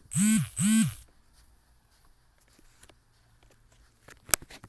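Two short, loud voice calls in quick succession in the first second, each rising and then falling in pitch; a single sharp click near the end.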